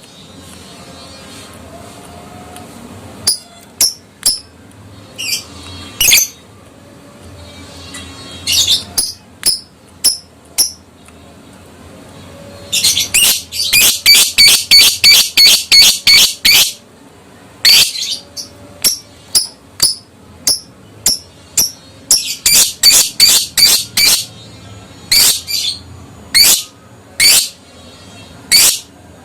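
Adult fighter lovebird calling: sharp, shrill, high-pitched chirps, some single and spaced, others in fast runs of about four or five a second, one run from about 13 to 17 seconds in and another from about 22 to 24 seconds in, the rapid 'ngekek' chatter used to provoke other lovebirds to answer.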